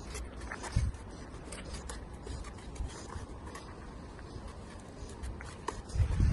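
Scattered clicks and scrapes of masonry work along the top of a brick wall, with a low thump a little under a second in and heavier thumps near the end.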